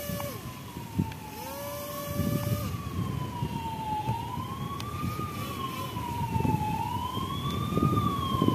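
A siren wails, its pitch rising and falling slowly about every two and a half seconds. Twice near the start, a small DC motor whines up to speed and runs for about a second before cutting off, spinning the homemade can helicopter's propeller. A rough low rumble runs underneath.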